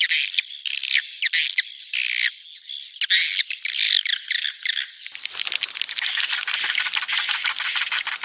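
Recorded edible-nest swiftlet calls: dense, rapid high-pitched twittering and chirping. About five seconds in it changes to fast clicking with a short high whistle repeated about every two-thirds of a second. It is a breeding-call lure track of the kind played to draw swiftlets into a nesting house.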